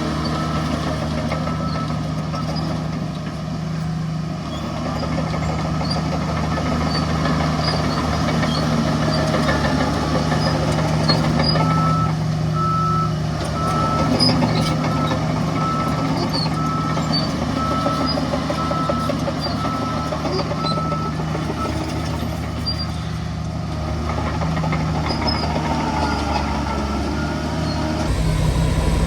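Heavy diesel engines of a bulldozer and dump trucks running steadily under a dense mechanical clatter. A reversing alarm beeps evenly for the first second or so and again for about ten seconds in the middle. The sound changes abruptly shortly before the end.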